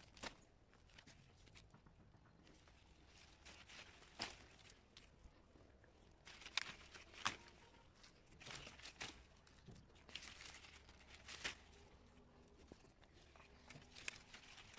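Faint rustling of persimmon leaves and branches with scattered short snaps and clicks as persimmons are pulled off the tree and put into a wicker basket.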